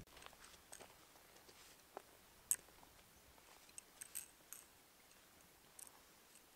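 Near silence, with a few faint scattered clicks and ticks, the sharpest about two and a half seconds in.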